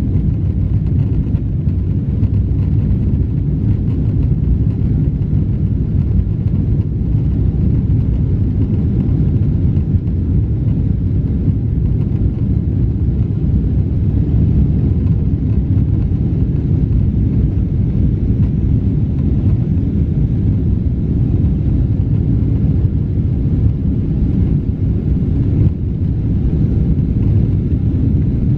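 Steady low rumble inside the cabin of a Boeing 777-300ER moving on the ground, its GE90 engines near idle, without the rising thrust of a takeoff roll.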